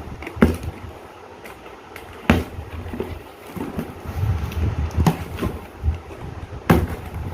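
A mixer grinder's accessory pack being unpacked by hand: rustling of packaging broken by several sharp knocks.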